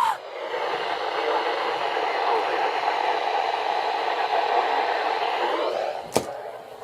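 Radio receiver hissing with steady static between weather alert broadcasts, cut off by a sharp click about six seconds in.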